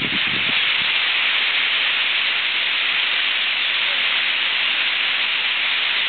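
A huge roosting flock of European starlings calling all at once from the trees, thousands of calls merging into a loud, steady hiss.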